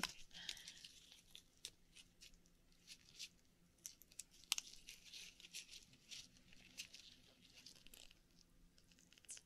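Faint wet clicks and soft tearing rustles, irregularly spaced, of fingers picking through a shucked Akoya oyster's flesh to find pearls.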